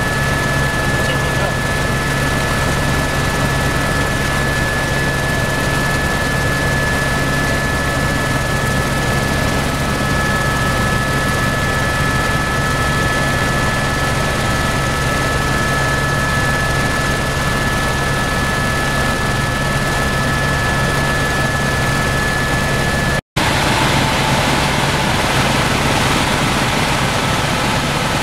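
Helicopter cabin noise in flight: the engine and rotor make a loud, steady drone with a steady high whine over it. A split-second dropout about 23 seconds in breaks the sound, and the same drone resumes right after.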